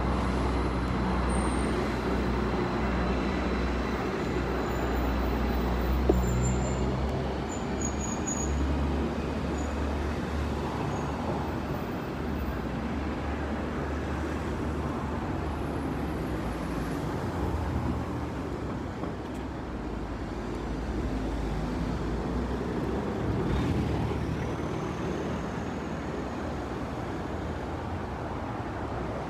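City street traffic: a steady low rumble of motor vehicles going by, with one sharp click about six seconds in.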